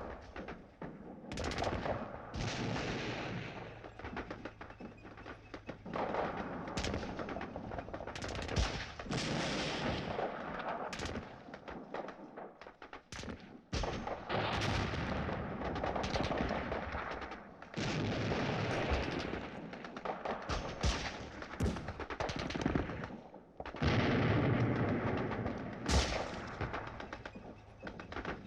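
Gunfire: repeated shots and bursts of rapid machine-gun fire, broken by short lulls.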